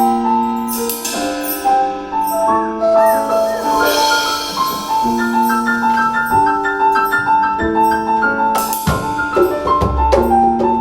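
Music: a melody of held pitched notes moving step by step over short percussion strokes, with a busier fill near the end.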